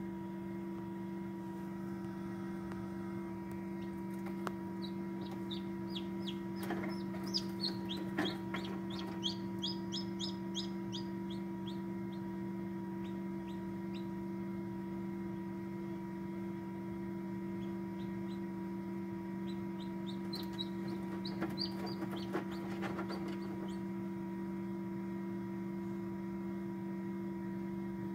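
Chick peeping: runs of short, high cheeps in quick succession, in two spells, the second a little past the middle. Under them runs the steady hum of the egg incubator.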